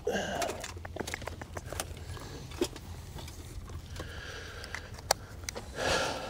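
Scattered light clicks and taps of small gear being handled, over a low steady rumble, with a louder rustle about six seconds in.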